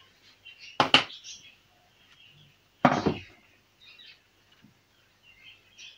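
Two short bursts of handling noise, about a second and three seconds in, as cables are worked into place inside a PC case. Faint bird chirping goes on between them.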